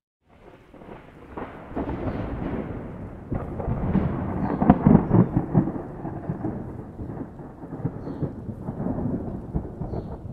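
Thunder rolling: a rumble that rises out of silence just after the start, crackles loudest in the middle, fades, and swells again near the end.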